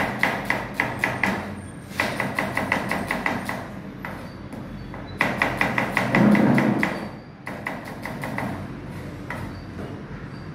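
Kitchen knife chopping quickly on a plastic cutting board, about six cuts a second, in short runs broken by brief pauses.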